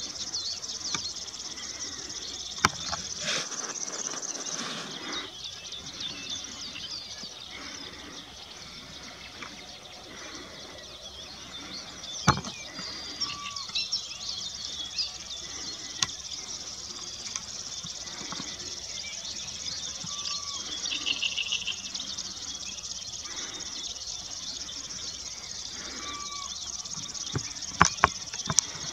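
Steady high-pitched chorus of insects and small songbirds chirping in a meadow, with a few sharp clicks.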